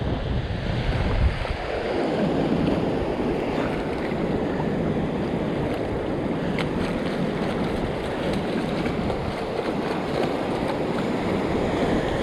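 Surf washing in over the shallows in a steady hiss, with wind buffeting the microphone, heaviest in the first second or so.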